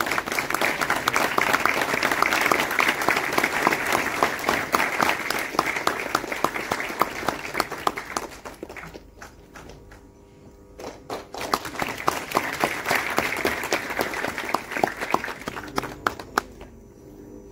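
Audience applauding: a long round of clapping dies down about eight seconds in to a few scattered claps, then a second round of applause rises and fades away near the end.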